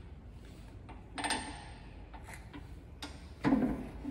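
Dake 5-ton ratchet arbor press worked by hand: two sharp metal clanks with a ringing note, about a second in and again near the end, with a few lighter clicks between.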